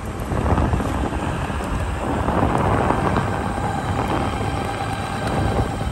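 Wind rumbling on the microphone while following a NAVEE S65 electric kick scooter as it rolls over asphalt. A steady whine joins about halfway through, which fits the scooter's hub motor under way.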